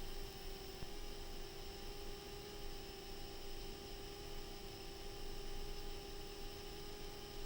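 Steady electrical hum with a constant hiss, a few fixed tones holding level throughout: noise on the FPV goggles' DVR audio track.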